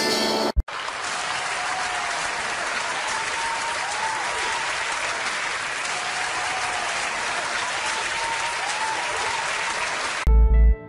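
Large audience applauding, a dense and steady clapping that starts just after the band's music cuts off abruptly. Near the end, calm instrumental music begins.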